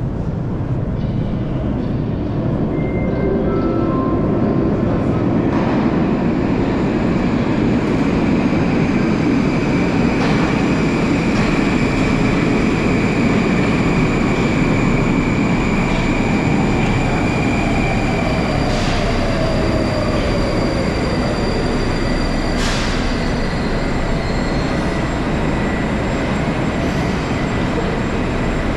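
Electric passenger train running, a steady rumble of wheels on rails with a whine that falls in pitch past the middle and a few sharp clicks.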